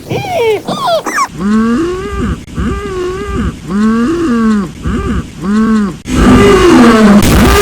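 Yoda's 'mhmm' hum played as a string of edited variations: two or three quick, high-pitched ones, then about five hums whose pitch bends up and down. About six seconds in, a much louder, distorted version starts.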